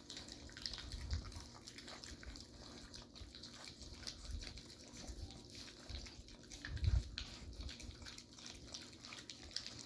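Puppies lapping and smacking at soft, wet puppy-chow mush in a bowl: faint, irregular wet clicks and licks, with a louder low knock about seven seconds in.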